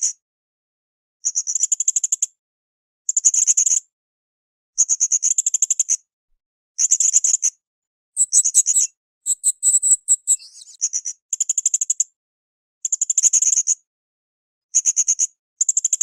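Blue-crowned hanging parrot (srindit) calling: short bursts of rapid, high-pitched chattering, each under a second, repeated every second and a half to two. About halfway through comes one more varied twittering phrase.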